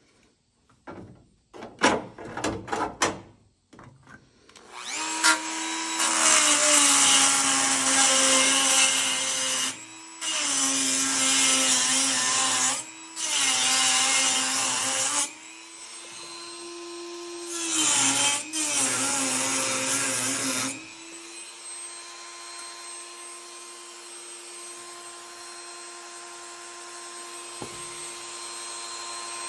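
Electric angle grinder grinding the steel of a car's floor pan in several long passes, its motor pitch dropping under load and rising in the short gaps between them. From about two-thirds of the way through it runs on freely without grinding. A few knocks come before it starts.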